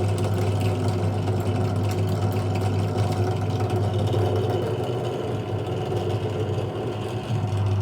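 ZJ4113 bench drill press running steadily with a constant motor hum while its bit is fed into a steel bicycle pedal lever, not yet cutting through.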